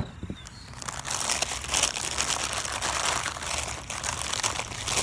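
Packaging from a fuel pump kit being opened by hand, crinkling and tearing in dense crackles from about a second in.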